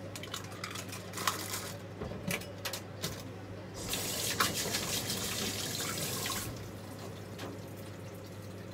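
Kitchen tap turned on and water running into a stainless steel sink for about two and a half seconds, then shut off. A few light knocks come before it.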